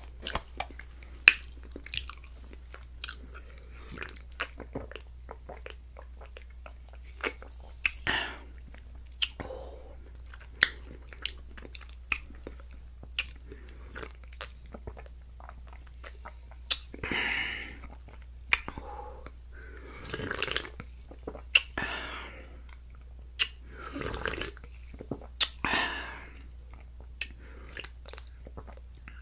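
Mouth and throat sounds of someone drinking soda from a can: many sharp wet clicks and swallowing gulps, with several longer breathy sounds in the second half.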